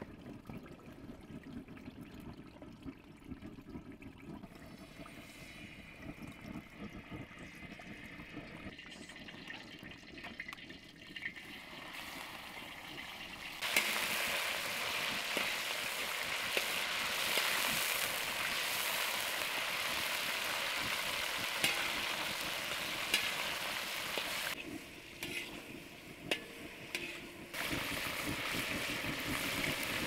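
Meat frying in hot oil in a large wok-style pan, stirred with a metal spatula. The sizzling is fainter at first and turns loud and steady about 14 seconds in. It dips for a couple of seconds near the end, then comes back.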